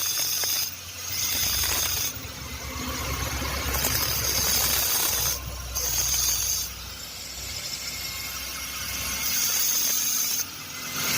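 Handheld power tool grinding into a metal pipe, a steady high hiss that stops briefly about a second in, again around the middle and once more near the end, as teeth are cut into the pipe to make a spanner.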